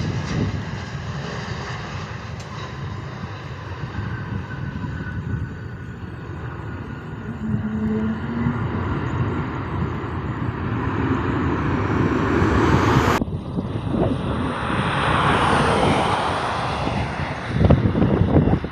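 Jet airliner engines running as a plane moves near the airfield: a steady rushing noise with a faint whine. About two-thirds of the way through, the sound changes abruptly to a louder rushing hiss that swells and fades.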